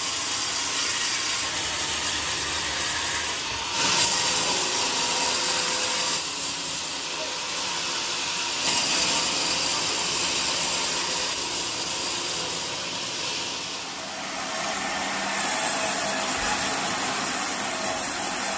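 Band sawmill blade running through a large joar log: a steady hiss of sawing, with the level stepping up or down a few times.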